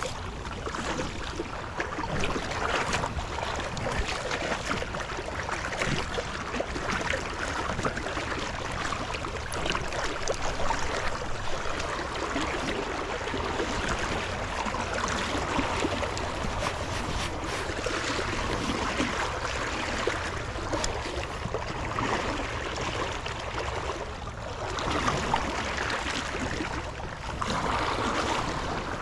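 Small creek's water running steadily over riffles, an even rushing noise.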